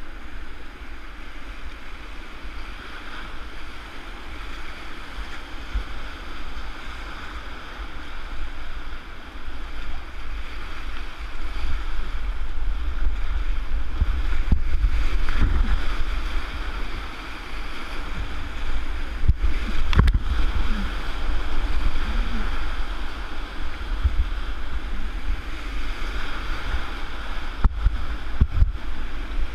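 Whitewater rapid rushing and churning right around a kayak, with low buffeting thumps. The sound grows louder about a third of the way in, as the boat drops into the rapid.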